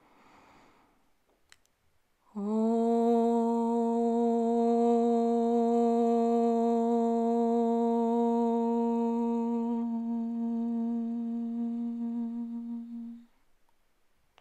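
A woman chants a single long Om on one steady pitch for about eleven seconds, starting a couple of seconds in after a soft inhale through the nose. The tone turns duller near the end, closing into the hummed 'm', then stops.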